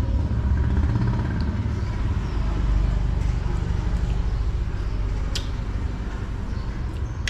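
Low, steady rumble of motor-vehicle traffic, an engine running nearby. There is one light click about five seconds in.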